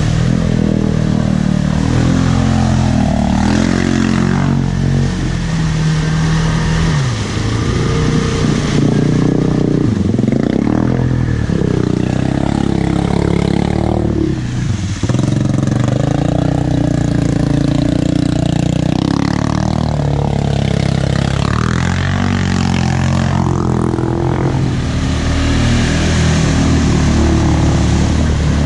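ATV engines revving hard while the quads churn through a deep mud hole, the engine pitch repeatedly rising and falling as the riders work the throttle.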